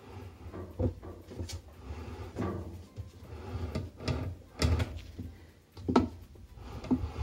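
Vice grips and plastic-coated steel cable being handled in a washer tub, giving a series of irregular knocks, clinks and scrapes against the wash plate and tub.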